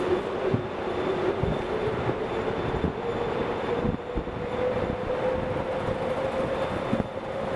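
Vehicle driving through a road tunnel: a steady rumble of tyres and engine, echoing off the tunnel walls, with a droning hum that slowly wavers in pitch and a few low thumps from the road surface.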